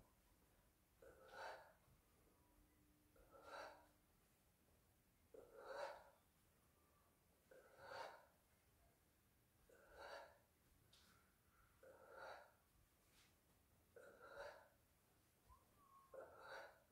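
A man's faint, steady breathing: eight breaths, each a short rush of air, about one every two seconds.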